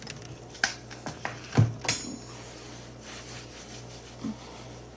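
A few small sharp clicks and knocks in the first two seconds, the heaviest a low knock about a second and a half in, over a steady low hum.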